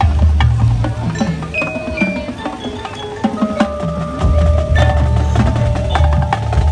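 Marching band playing its field show: long held low and middle notes with mallet percussion, chimes and sharp percussion strikes.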